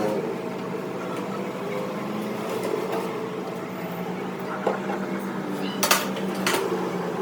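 A steady low mechanical hum, with sharp clinks about five and six and a half seconds in.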